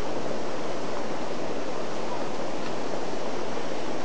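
Steady rushing noise without breaks.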